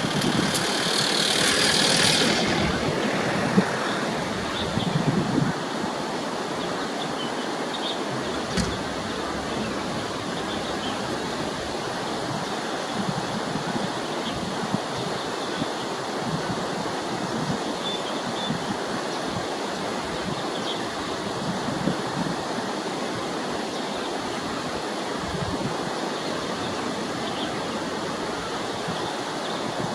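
Steady rushing of running water, like a stream, with a louder hiss for the first two seconds. A few faint, short high notes come through now and then.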